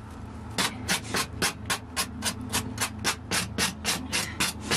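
A knife scraping over baked tandoor naan in fast, even strokes, about four a second.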